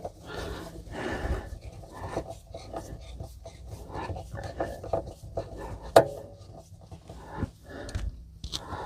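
Hand-work noises of screwing a sink unit down at its corners: irregular rubbing and scraping with light knocks, and one sharp click about six seconds in.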